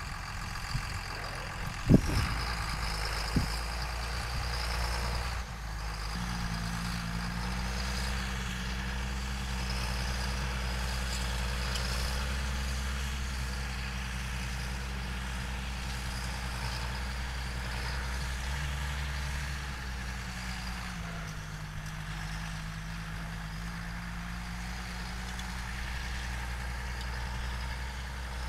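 A diesel engine runs steadily with a deep rumble, its pitch shifting slightly a few times. A sharp knock comes about two seconds in and a lighter one shortly after.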